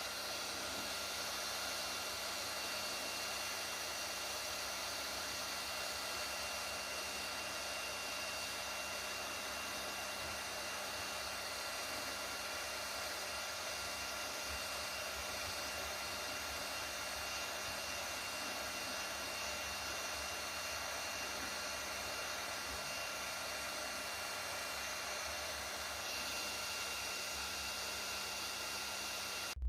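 Kingroon KP3S 3D printer's cooling fans running: a steady whir and hiss with a faint, constant high tone.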